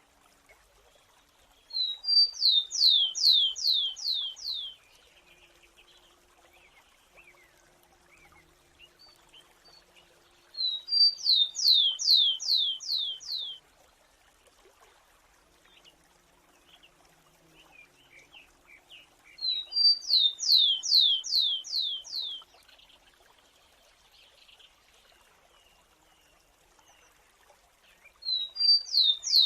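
Grassland sparrow singing: four repeats of the same song, about nine seconds apart. Each song has two short high introductory notes, then a quick run of about seven slurred whistles, each sliding down in pitch.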